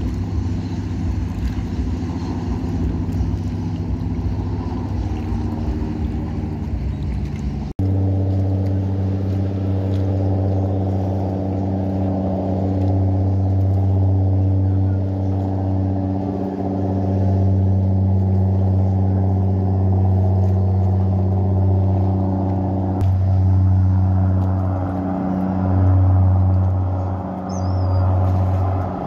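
Engines of express passenger riverboats running at speed as the boats pass: a steady low drone holding a few fixed pitches. It breaks off sharply about eight seconds in and comes straight back louder and a little different in pitch, then swells and dips a few times near the end.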